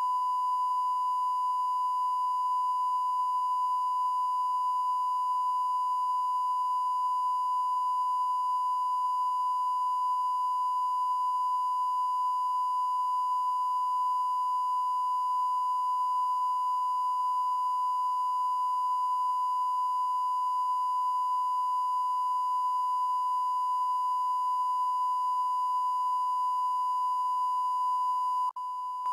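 Continuous electronic test tone of the kind played under a broadcast test card: a single steady, high-pitched beep at constant pitch. It dips briefly near the end and resumes.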